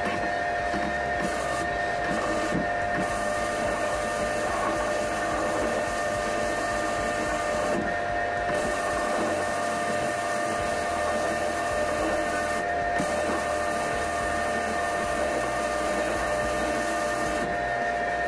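Wire-feed (MIG) welder arc running steadily on thick steel at about 21 volts, a continuous crackling hiss that stops briefly several times between weld beads.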